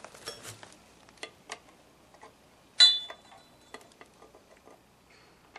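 Steel hand tools clicking and clinking against metal, as sockets and a long-handled wrench are handled and fitted onto a rusted fastener on a drum-brake backing plate. One sharp metal clank rings on briefly about three seconds in.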